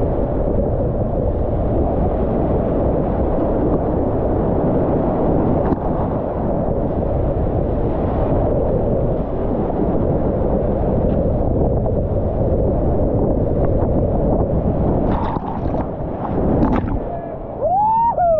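Whitewater rapids rushing loud and steady around a kayak running down a granite slide, with wind noise buffeting the microphone. The rush eases near the end, where a person gives a short yell.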